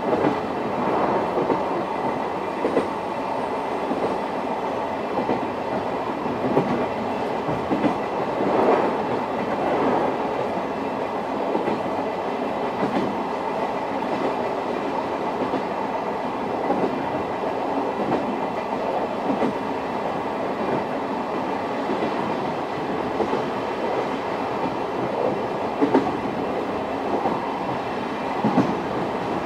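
Running noise heard inside a JNR old-type passenger coach (Suhafu 42) under way: a steady rumble of wheels and bogies on the rails, with occasional knocks from rail joints.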